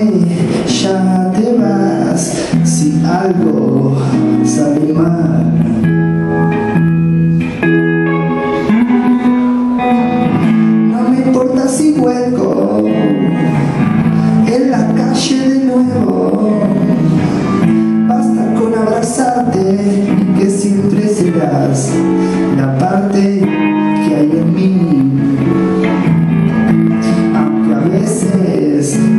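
Live band playing a song: guitar over drums, with cymbal hits scattered through it.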